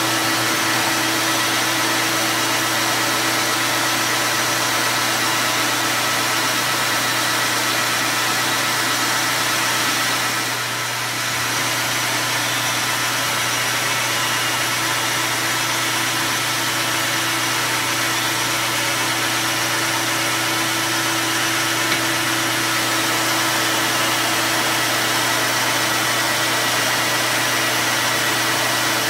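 ANMEC BL330E metal lathe running during turning cuts: a steady hum of motor and gears with a few constant tones under a hiss, dipping briefly about ten seconds in.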